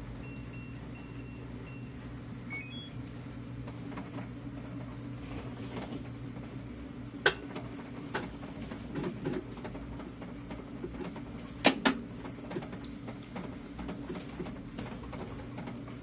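Top-load washing machine's control panel beeping three times, then a short rising chime as the agitation setting is changed. The machine then runs with a steady low hum, broken by two sharp knocks.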